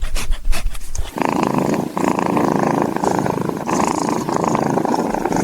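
A puppy growling: one low, continuous growl that starts about a second in and carries on without a break.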